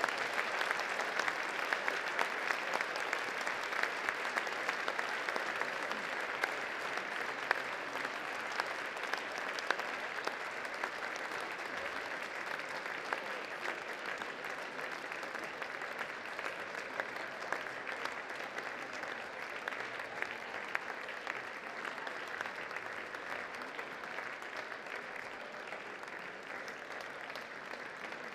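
Audience applauding, a long round of clapping that slowly grows quieter.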